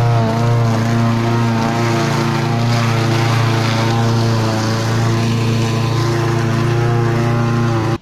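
Small single-cylinder engine of a red walk-behind gas lawn mower running steadily while mowing grass, a constant loud drone that dips slightly in pitch near the start.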